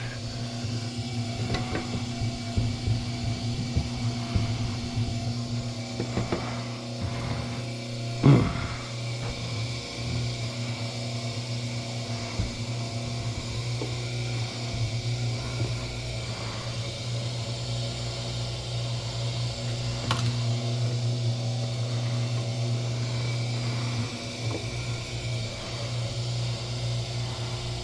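Electric wire stripping machine running with a steady hum while stripping copper wire, with scattered light clicks and one sharper knock about eight seconds in.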